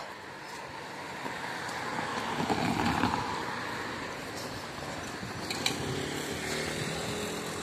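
A motor vehicle passing by, its engine and road noise swelling to a peak about three seconds in and then fading away.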